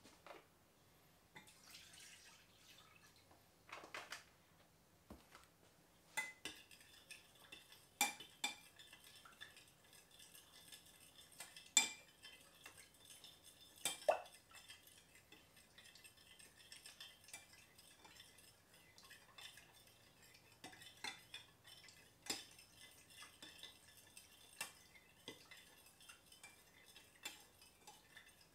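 Half-and-half poured from a carton into a glass measuring cup, then a utensil stirring in the cup, clinking irregularly against the glass with a few louder knocks.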